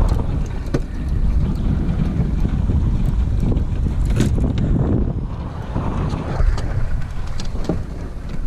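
Wind buffeting the microphone on an open boat, a steady low rumble, with a few sharp knocks scattered through it.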